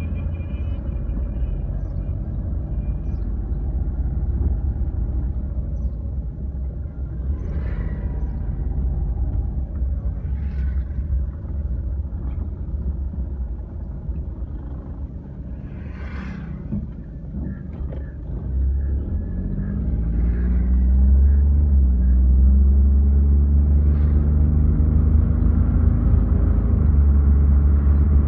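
Car engine and road rumble heard from inside the cabin while driving. About two-thirds of the way through, the engine note climbs as the car accelerates, and the rumble grows louder.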